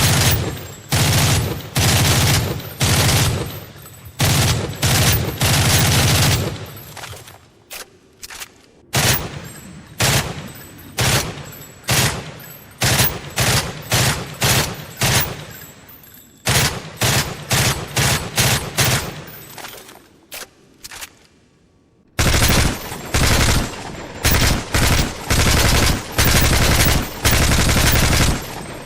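Gunfire sound effects: repeated bursts of rapid automatic fire, each shot sharp and followed by an echoing tail. The firing thins out with single shots and a short lull about twenty seconds in, then picks up again in heavy bursts.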